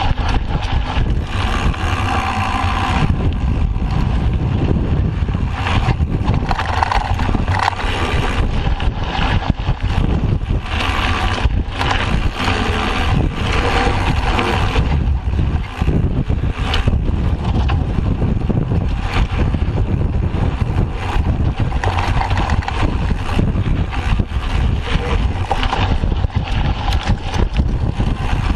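Mountain bike riding over a rough dirt singletrack: a steady rumble of wind buffeting the handlebar-mounted camera's microphone and knobby tyres rolling on dirt, with frequent rattles and clatters of the bike over bumps.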